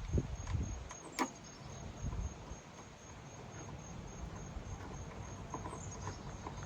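Crickets chirping in a steady, even pulse of high chirps, with one sharp click about a second in and some faint low handling noise at the start.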